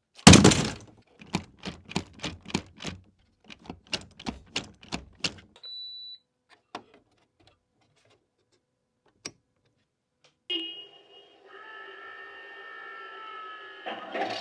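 RC Tiger tank model powering up: a run of sharp clicks, about three a second, then a short high beep, then a steady whirring with several held tones from about ten seconds in. Near the end the model's engine sound starts up.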